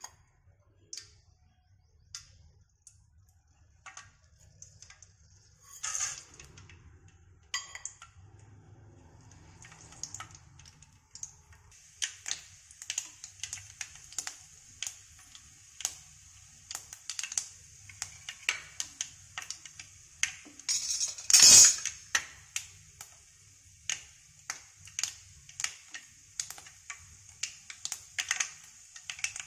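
Mustard seeds and urad dal frying in hot oil in a stainless steel kadai. Scattered pops at first, then from about ten seconds in a steady sizzle with quick crackling as the mustard seeds splutter, and one loud burst of crackling about two-thirds of the way in.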